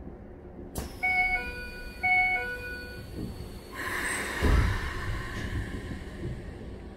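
Train door chime on a Keikyu 1000-series car sounding twice, each a two-note falling ding-dong, followed by a rush of air and a low thump as the doors close before departure.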